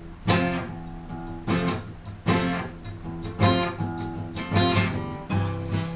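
Acoustic guitar strumming chords, one strum about every second, each ringing on before the next.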